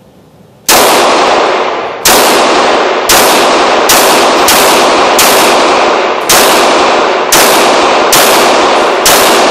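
FN Five-seven pistol firing 5.7x28mm rounds: ten shots in a steady string, roughly one a second, starting under a second in. Each shot's report rings on in the enclosed indoor range until the next.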